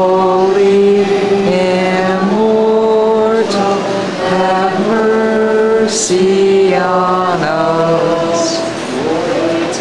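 Orthodox liturgical chant, sung in long held notes that step to a new pitch about every second, with a sharp hissing consonant now and then.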